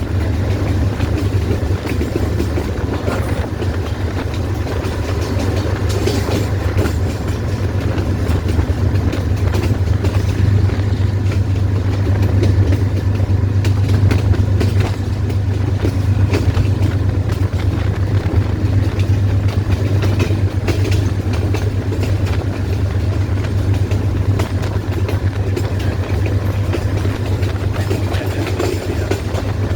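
GEU-20 diesel-electric locomotive hauling a passenger train. Its engine gives a steady, deep drone over the running noise of the train on the rails.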